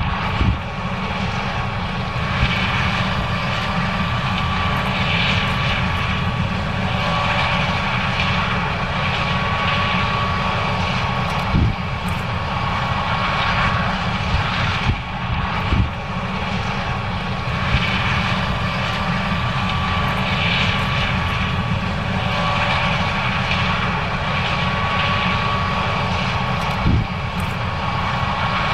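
John Deere S790 combine running steadily while harvesting corn, a deep rumble with a high steady whine over it. A brief knock comes three times.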